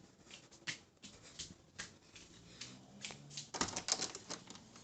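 A scatter of irregular light clicks and taps, coming thicker in a quick cluster about three-quarters of the way through.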